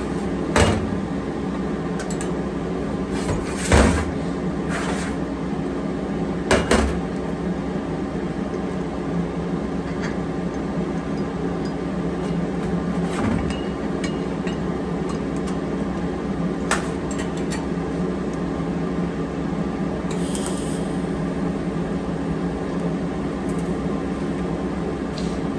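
TIG welder tacking a stainless steel wastegate dump pipe to its flange: three short sharp bursts about three seconds apart over a steady electrical hum, with a brief hiss late on.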